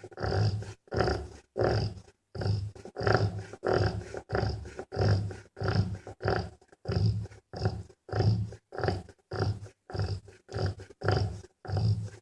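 Rottweiler bitch snoring in deep sleep: a fast, regular train of low, rasping snores, roughly three every two seconds, with short silences between.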